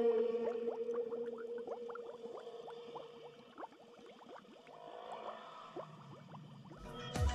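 Underwater bubbling sound effect: a stream of small bubble blips and gurgles over a held low tone that fades away. Music with sharp percussive hits comes in near the end.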